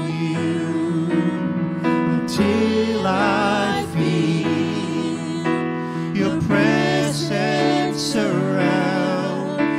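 Live gospel worship song: a man singing lead through a microphone with vibrato and sliding notes, a woman singing along, over sustained electronic keyboard chords.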